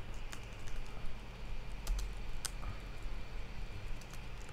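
Typing on a computer keyboard: a few scattered, irregularly spaced keystrokes, the sharpest about two and a half seconds in.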